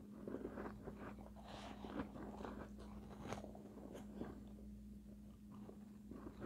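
A mouthful of soft, finely shaved ice being chewed close to the microphone: small, irregular, quiet crunches, with a steady low hum underneath.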